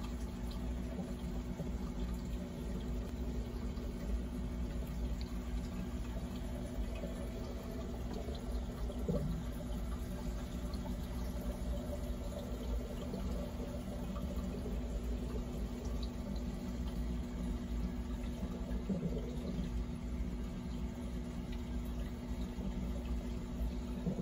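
Aquarium filter running: a steady trickle and splash of water from the filter return into the tank, over a constant low hum.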